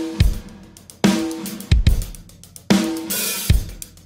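Acoustic drum kit played hard in a slow beat: loud drum hits about once a second, each ringing on after the stroke, with bass drum strokes and a cymbal crash a little after three seconds in.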